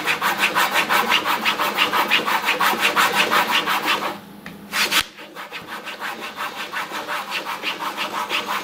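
A coin rubbed rapidly back and forth on a leather strop charged with GOI polishing paste: a steady scraping rub at about six strokes a second. The rubbing stops briefly a little past the middle, then resumes slightly softer.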